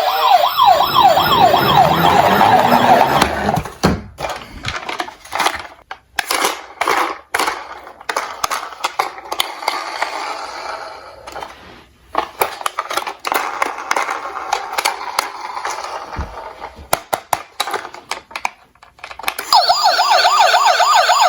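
Several toy emergency-vehicle sirens wailing together, overlapping and fast-wavering, for the first few seconds. Then toy cars clatter down a slope track with repeated clicks and knocks. The sirens start again near the end.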